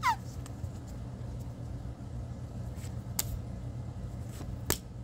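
Pokémon trading cards being handled and flipped through in a hand-held stack, giving a few sharp clicks, the two loudest about three and four and a half seconds in, over a steady low hum.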